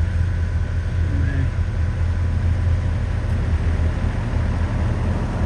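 Yanmar ViO55 excavator's diesel engine running steadily, a constant low drone with no change in speed.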